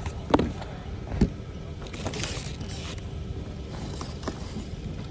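Handling noise from a hand-held phone: two sharp knocks about a second apart near the start, then a stretch of rustling, over the steady hum and chatter of a busy warehouse store.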